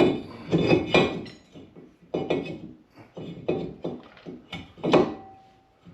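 Irregular metallic clanks and knocks of steel brake parts and hand tools being handled during reassembly of a car's rear brake, with a short ringing tone after one knock near the end.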